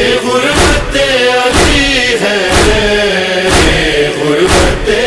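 Noha interlude: a wordless vocal chorus holding a slow, mournful chant, with a heavy thump about once a second keeping the beat.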